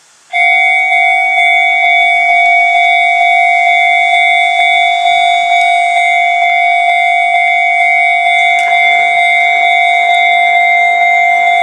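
Japanese railway level-crossing warning bell, starting suddenly and ringing on in a steady, evenly repeating pattern: the crossing has been activated as a train approaches.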